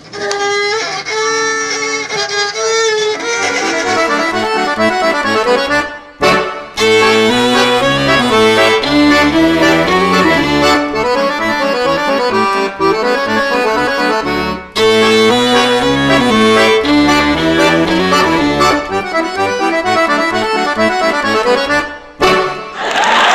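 Fiddle and piano accordion playing a traditional-style tune together, opening with a few held notes before the quick melody comes in. The music breaks off briefly about six seconds in and stops shortly before the end.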